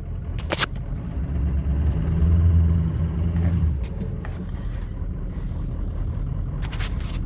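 Pickup truck engine running steadily under load while plowing, getting louder for about two seconds in the middle as it works harder, with a few sharp clicks near the start.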